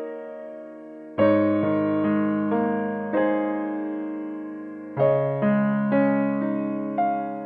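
Soft background piano music: slow, sparse notes and chords, each struck and left to ring and fade, with a gap of a couple of seconds in the middle.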